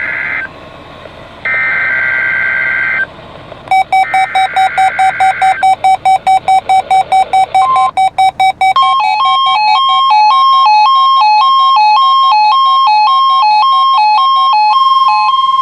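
NOAA Weather Radio SAME digital header: the end of one burst of warbling data tones, then two more bursts about a second and a half long. From about four seconds in, a weather radio's electronic alert sounds over the last burst, first as fast even beeping at about three to four beeps a second, then, from about nine seconds in, as beeps alternating between two pitches.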